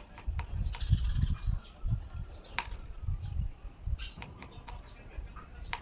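A small bird pecking at a motorcycle's side mirror as it fights its reflection: irregular sharp taps, with short high chirps in between.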